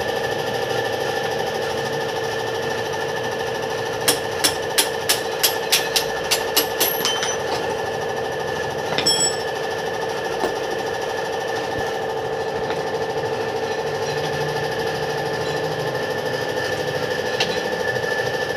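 Hammer striking metal in a quick run of about ten blows, about three a second, followed by a few single strikes, one of them ringing, during hand repair of a dented motorcycle rim. A steady mechanical hum runs underneath.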